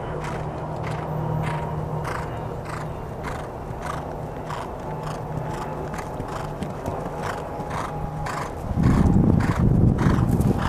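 Ridden horse's hoofbeats on turf: a steady rhythm of soft thuds, a few a second, over a low steady hum. Near the end a loud low rumble joins in.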